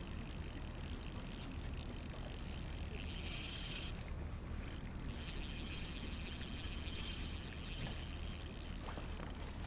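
Spinning reel being cranked to retrieve a lure: a steady whir of the reel's gears that stops briefly about four seconds in and then resumes.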